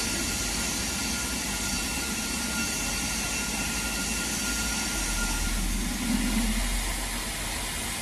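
Standing BR Standard Class 9F steam locomotive hissing steadily as steam leaks around its cylinders. A low rumble swells about six seconds in.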